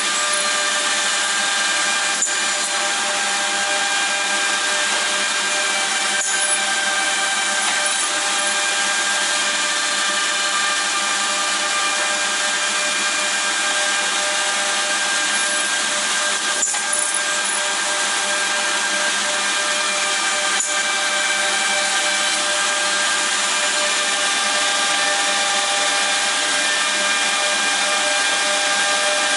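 OTT Tornado edge banding machine running, the motors of its trimming units spinning with a steady whine made of many pitches at once. A few faint ticks sound through it.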